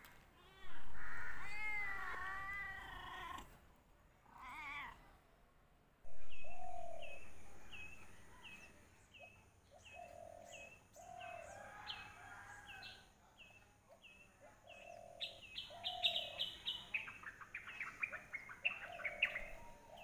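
A domestic cat meowing: one long wavering meow, then a shorter one. After about six seconds, birds calling: short calls repeat about one and a half times a second with a lower call between them, over a steady high whine, and turn into rapid chattering notes near the end.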